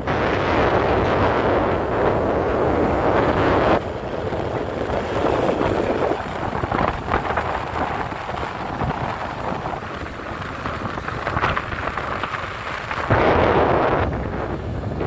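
Loud wind buffeting the microphone, a rough rushing rumble that shifts abruptly about 4 seconds and again about 13 seconds in.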